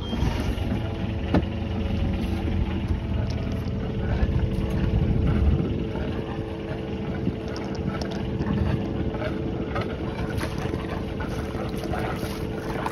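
Sailboat's inboard engine starting up and running steadily, with a steady rumble, as its cooling-water flow is being checked.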